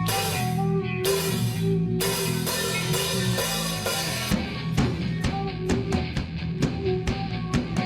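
Rock music with electric guitar and drum kit: held guitar chords at first, then the drums come in with a steady beat about four seconds in.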